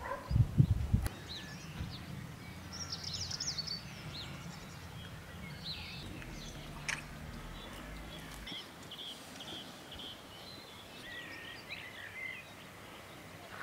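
Small birds singing outdoors: scattered high chirping phrases, with a run of quick repeated notes in the second half. A faint low rumble of wind on the microphone lies under them, with a couple of louder gusts in the first second.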